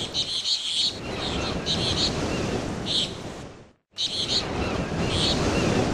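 Outdoor ambience: a steady rush of wind and water with birds chirping in short high bursts, broken by a brief gap of silence about four seconds in.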